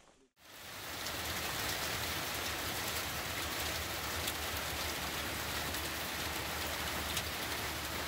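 Steady rain falling in a downpour, fading in after a brief gap near the start, with scattered drop ticks through it.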